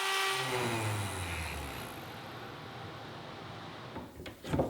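Handheld router motor spinning down after being switched off, its pitch falling and fading over about a second and a half after cutting a shallow hinge mortise in a door, followed by a couple of sharp knocks near the end.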